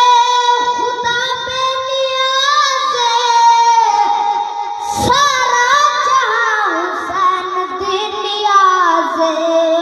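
A boy singing a manqabat (devotional praise song for Imam Hussain) into a microphone, drawing out long wavering notes without words, with a short break about five seconds in.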